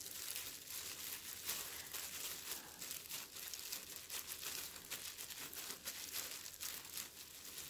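Disposable plastic food-prep gloves crinkling and rustling as hands press and shape a rice ball, a faint continuous run of small crackles.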